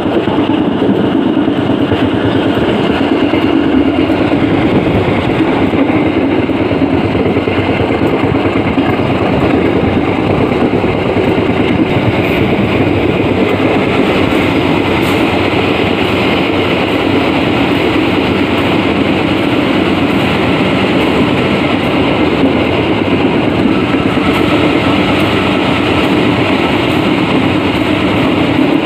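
Passenger train running steadily at speed: a continuous loud rumble of wheels on rail and the rattle of the carriage, heard beside a carriage door. The train is inside a tunnel for the later part.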